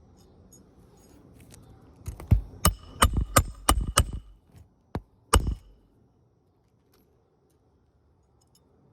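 Hammer driving roofing nails into an asphalt shingle: about seven quick, ringing strikes over two seconds, then a lighter tap and one last hard blow.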